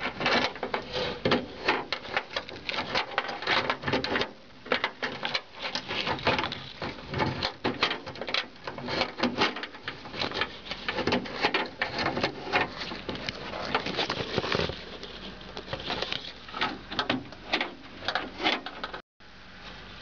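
Isuzu pickup (Holden Rodeo) door lock mechanism clicking and rattling as the key is turned back and forth in the lock, a rapid irregular run of metal and plastic clicks and knocks. The clicks thin out after about fifteen seconds and stop abruptly near the end.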